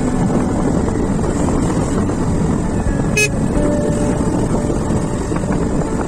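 Motorcycle engine running steadily under way, with wind rushing over the microphone. A short, sharp high sound comes about three seconds in.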